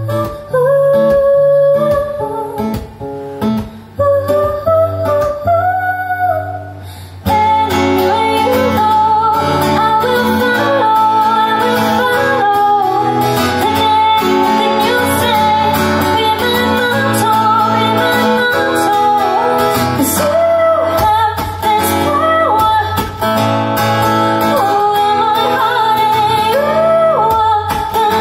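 A woman singing live to her own acoustic guitar. The accompaniment is sparse at first, then about seven seconds in the guitar playing becomes much fuller and busier under the voice.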